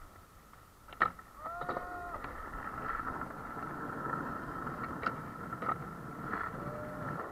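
Skateboard wheels rolling on concrete, with the board clacking against the ground: a sharp clack about a second in, a few lighter knocks, and another clack at the end.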